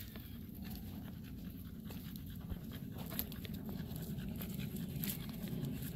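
A dog panting steadily as it trots close by, with light crackles of footsteps on dry leaf litter.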